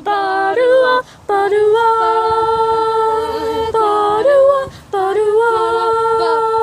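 Several voices singing together unaccompanied, in phrases of long held notes with two parts sounding at once and short breaks between phrases.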